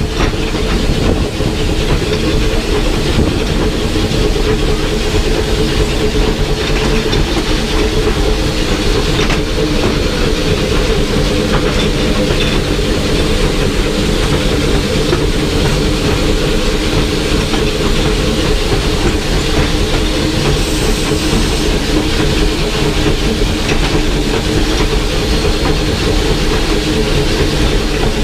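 Copper Range Railroad No. 25 steam locomotive running under way, heard from inside its cab: a loud, steady din of the running engine and wheels on the rails.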